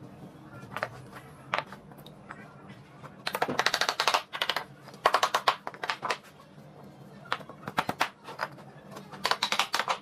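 Sharp knocks in quick runs of about ten a second, three runs in all, with scattered single clicks between them.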